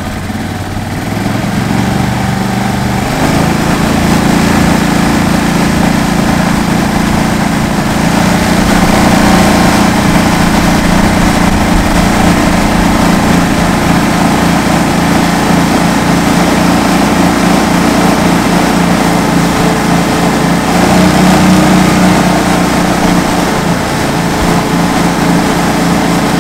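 Mud Buddy 35HD surface-drive mud motor throttling up over the first few seconds, then running steadily at high speed as it pushes the jon boat along at full plane. The engine pitch steps up a little a couple of times along the way.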